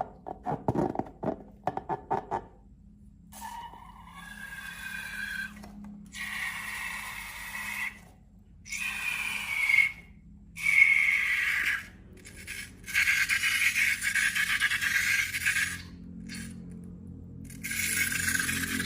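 A quick run of crackly taps, then a series of squeaky, rasping scrapes, each one to three seconds long with short pauses between, over a faint low hum.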